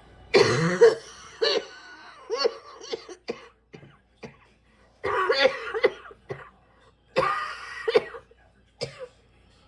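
A person's persistent cough coming in fits: clusters of several coughs each, about five of them, with short quiet pauses between the fits.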